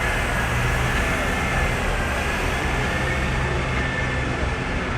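Tractor engine running steadily under heavy load while pulling, a constant low engine note with a faint high whine above it.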